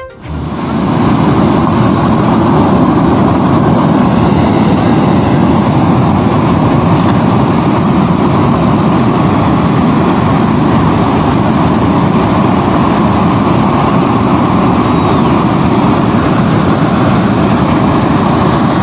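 Muddy flash-flood torrent rushing down a hillside, a loud steady low rumble of fast water and debris that starts about half a second in.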